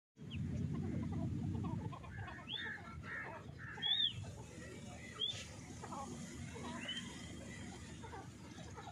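A francolin (teetar) gives short whistled call notes that rise and fall, spaced a second or more apart, the loudest about four seconds in, over a low rustle that is strongest in the first two seconds.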